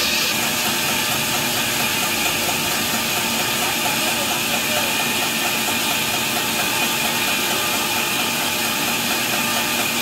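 Large vertical band saw ripping lengthwise through a big log as it is pushed through the blade: a steady, loud hiss of the blade in the wood over the saw's continuous machine hum.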